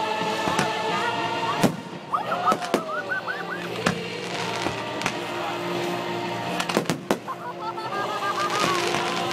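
A fireworks display over steady background music: comets rising and shells bursting, with several sharp bangs scattered through and two quick runs of short rising chirps.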